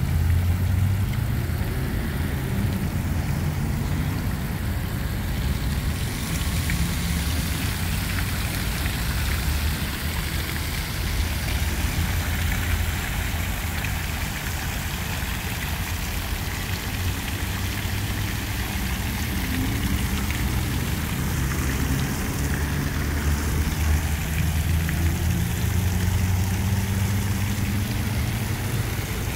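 Fountain jets spraying and splashing steadily into a stone basin, a continuous rain-like hiss, over a low rumble of city traffic.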